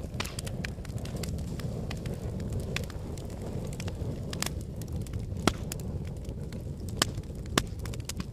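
Wood fire in a fireplace crackling, with many small snaps and three louder pops in the second half over a steady low rumble.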